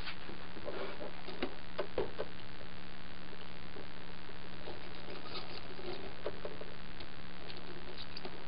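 Light scratchy rustles and small taps of fingers handling and lining up stacked hook-and-loop (Velcro) strips on a plastic cutting mat, coming in clusters near the start, around the middle and near the end, over a steady low hum.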